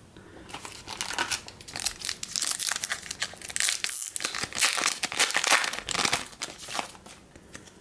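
Foil trading-card pack wrapper being torn open and crinkled as the cards are slid out: a dense crackling rustle, loudest in the second half, dying away just before the end.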